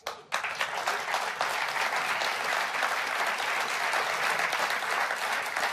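Large audience applauding: dense clapping from many hands that starts abruptly and holds steady.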